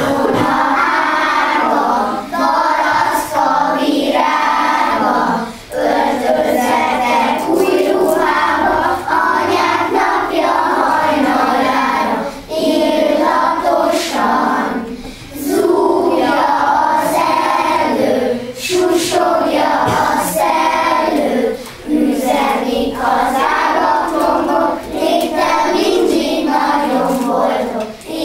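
A class of young children singing a Hungarian song together in chorus, phrase by phrase, with short breaks between lines.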